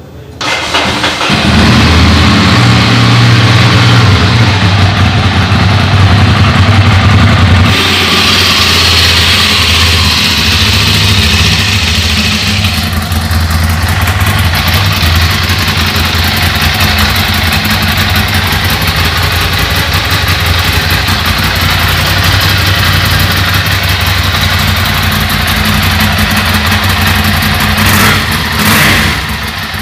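Ducati Monster 796's air-cooled L-twin engine starting about half a second in, then idling steadily, heard at the exhaust.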